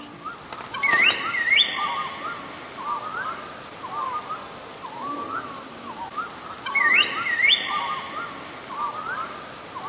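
Wild birds calling: many short warbled notes, with a pair of quick rising whistles about a second in and again about seven seconds in.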